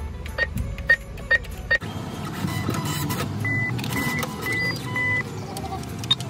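Cash machine: four button presses, each with a short beep, then about two seconds in the cash dispenser's motor starts whirring as it counts out the banknotes, with four short beeps about half a second apart as the cash comes out.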